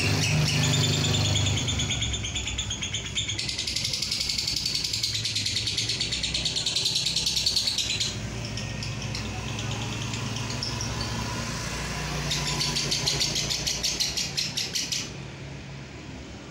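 Fischer's lovebird singing a long, unbroken chattering trill ('ngekek') of fast, high notes, stopping about fifteen seconds in. A low steady drone runs underneath.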